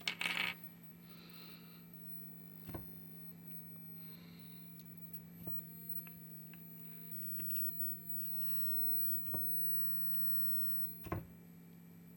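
A steady low electrical hum with a few sharp clicks scattered through it, and a short rustling burst right at the start.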